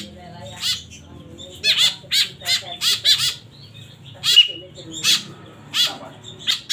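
White-breasted woodswallow (kekep babi) chicks begging for food with a string of short, harsh, repeated calls in loose clusters. A brief high whistle note sounds about four and a half seconds in, the feeding cue they are being trained to.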